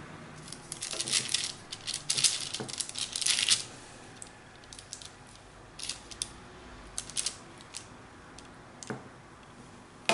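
Metal spoon scraping and clinking against the mixing bowl and the paper-lined plate as sticky salmon fishcake mixture is scooped out and spooned onto the plate. A busy run of scrapes comes in the first few seconds, then scattered light clicks and taps.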